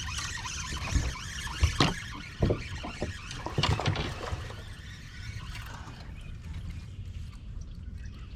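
Handling noise on a small fishing boat: several sharp knocks and clicks in the first half, over a steady low rumble of wind and water.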